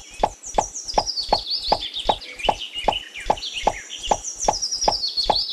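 Birds chirping in short, high, falling calls, over a quick, even run of sharp clicks at about four a second.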